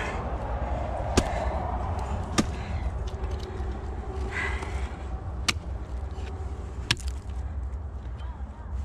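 Ice tool picks swung into a frozen waterfall: four sharp chopping strikes as the picks bite into the ice, one to three seconds apart.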